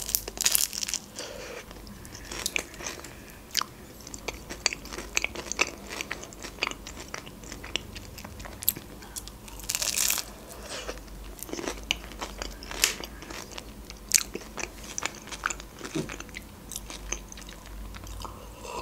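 Close-miked eating: bites into a crisp pastry and chewing, with many short crunchy crackles throughout.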